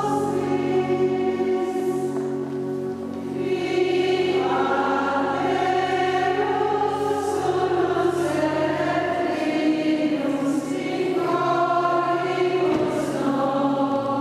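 A choir singing a hymn, with long held low notes sustained underneath the voices.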